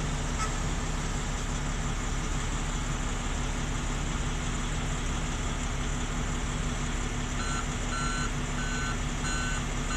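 Heavy truck's diesel engine idling steadily. From about seven and a half seconds in, a vehicle's reversing alarm starts beeping about twice a second.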